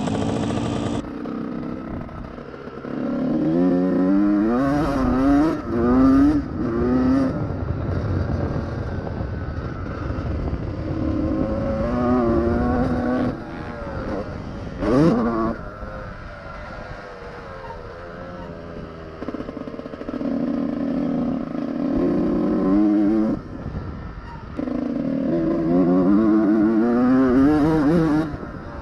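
Honda CR125R two-stroke single-cylinder motocross engine being ridden hard, its pitch climbing and falling as it revs out and shifts. Several times the throttle closes and the engine drops back quieter for a few seconds before revving up again.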